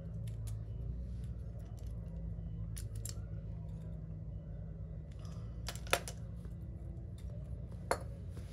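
Small metal clicks and taps of carburetor parts being handled and set down on a concrete floor, with two sharper clicks about six and eight seconds in, over a steady low hum.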